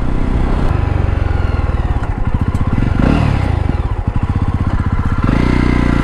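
Jawa motorcycle's single-cylinder engine running while riding, its pulsing beat changing about five seconds in to a steadier, lower note as the bike slows.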